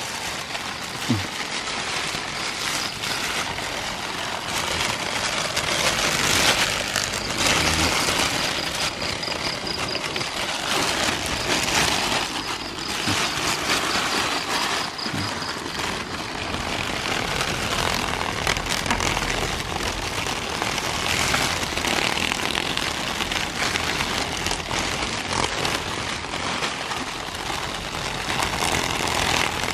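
Thin plastic bag crinkling and rustling as it is gripped and handled, louder in the middle.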